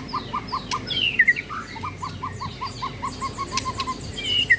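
Caged white-rumped shamas (murai batu) singing: a long run of short, evenly repeated notes, about five a second, with quick falling whistles above them.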